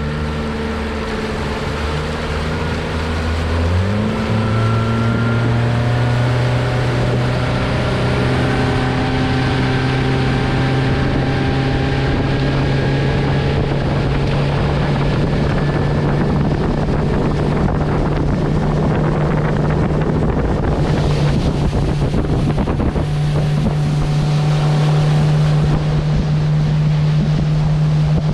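Motorboat engine running under way, its pitch stepping up sharply about four seconds in as the boat speeds up, then holding steady and rising again later, with wind buffeting the microphone.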